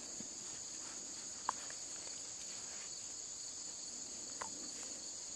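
A steady, high-pitched chorus of insects chirring in summer grass, with two brief faint clicks, one about a second and a half in and one near the end.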